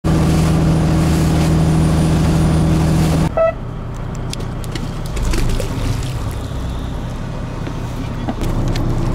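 Boat's outboard motor running steadily under way, a loud even hum. It cuts off suddenly about three seconds in, with a short beep, to a quieter low rumble that grows louder again near the end.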